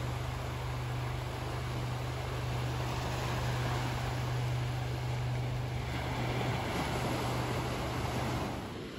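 Steady rush of sea waves on the beach mixed with wind noise, over a constant low hum, easing a little near the end.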